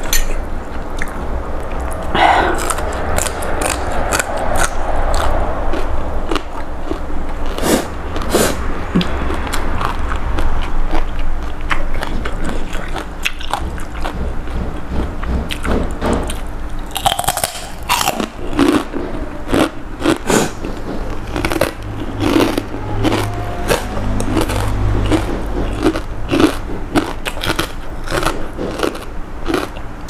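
Close-miked chewing and eating of rice noodles from a bowl of spicy pork noodle soup, with many small wet clicks. About halfway through, a fried pork rind is bitten, giving a few crisp crunches.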